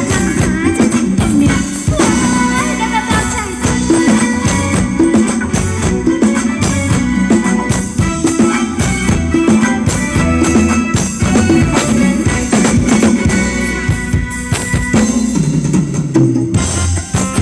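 Live band playing Thai ramwong dance music, with drums and shaken percussion keeping a steady beat.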